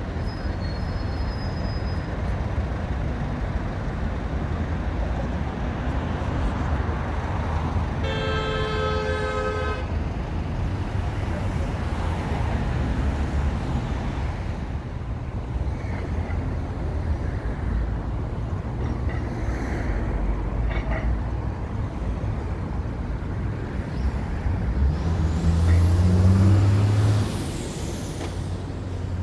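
Steady city traffic rumble. A horn sounds one held toot for about two seconds, about eight seconds in. Near the end a heavy vehicle's engine passes close and louder for a couple of seconds.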